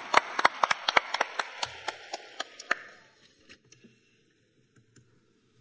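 Audience applause, with sharp hand claps close to the microphone standing out above it; the applause dies away about three seconds in.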